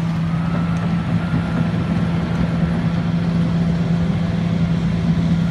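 Excavator's diesel engine idling steadily, a constant low hum.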